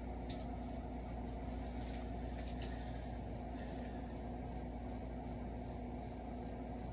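A steady low mechanical hum of room background noise, with a few faint short clicks.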